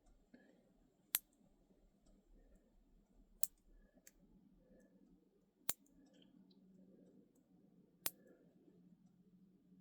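Small plastic building pieces clicking as they are fitted together: four sharp clicks about two seconds apart, with a few fainter ticks of parts being handled between them.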